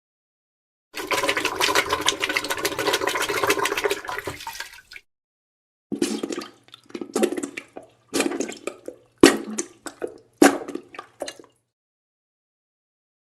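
Wet diarrhea and fart sound effects: a long crackling, spluttering wet noise lasting about four seconds, then after a short pause a string of short irregular sputtering bursts, some sharper than others.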